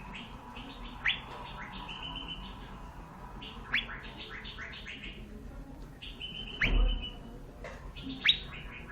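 Cucak gadung (blue-winged leafbird) calling: quick runs of chirps and short held whistles, cut by four sharp upward-sweeping whistles. A low bump comes with the loudest sweep about two-thirds through.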